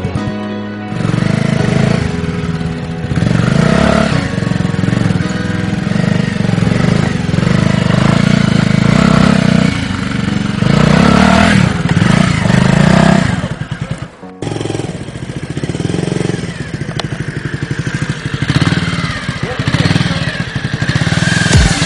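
Modified Bajaj Pulsar 150's single-cylinder engine, with an aftermarket exhaust, revving and labouring under load as the bike is forced through mud, rocks and shallow water. About two thirds of the way through it drops away briefly, then picks up again.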